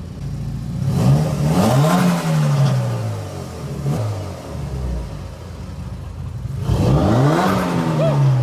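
Mitsubishi Lancer Evolution VIII's turbocharged 4G63 inline-four, fitted with an aftermarket ETS intake, revved up twice. Each time the pitch climbs quickly and then falls back as the revs drop.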